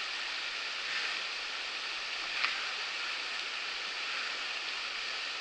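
Shallow river riffle rushing steadily over rocks, with a faint click about two and a half seconds in.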